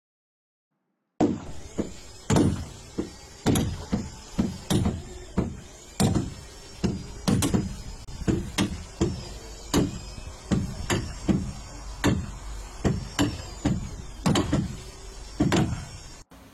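Hand hammer blows on the timber planking of a wooden boat hull under construction, struck at a steady pace of about two a second, each knock with a short ring. The blows begin about a second in and stop just before the end.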